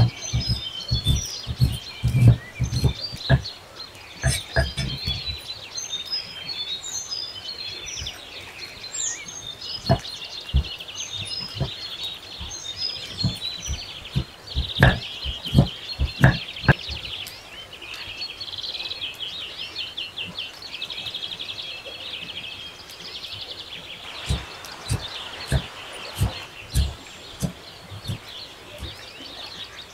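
Kitchen knife chopping on a wooden board through onion, tomato and coriander: a quick run of strokes in the first five seconds, then scattered single strikes. Birds chirp throughout.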